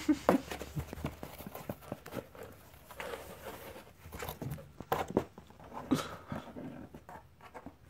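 Cats scuffling over a small cardboard box on carpet, knocking and batting it about: irregular light taps and thumps of the box, with paws scrabbling.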